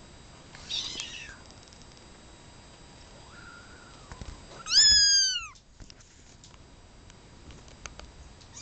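Very young kitten meowing: several short, high-pitched mews, each falling in pitch, the loudest about five seconds in and another near the end. The owner takes them for a call for attention.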